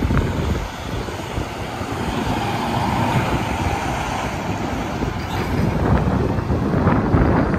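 Interstate highway traffic passing at speed: a steady roar of tyres and engines that builds louder through the second half.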